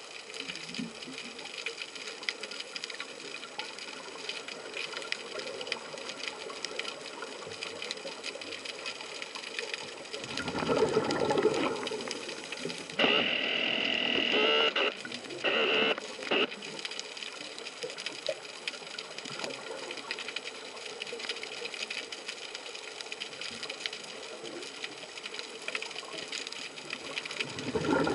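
Underwater sound of a scuba dive: a steady crackling full of fine clicks, broken by the diver's regulator breathing. A gurgling rush of exhaled bubbles comes about ten seconds in and again at the end, and a hiss in two parts comes just after the middle.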